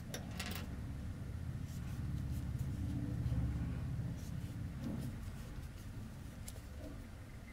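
Faint scratchy rustling and small clicks of cotton yarn being worked with a crochet hook by hand, over a steady low rumble.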